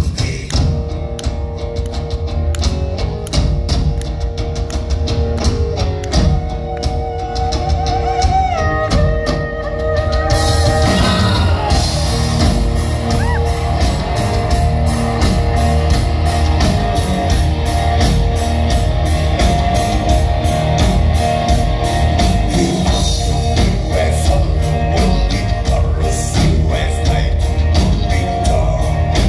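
Live Mongolian folk-metal with bowed horsehead fiddles (morin khuur), drum kit and vocals. Sparser drum hits at first; about ten seconds in the full band comes in louder and denser.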